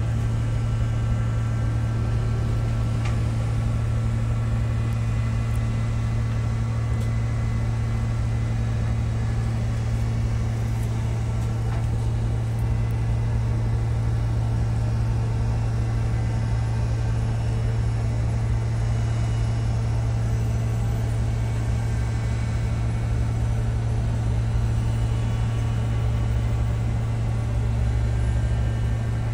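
Steady low machinery hum, one unchanging pitched drone with a fainter higher overtone over a light rushing noise.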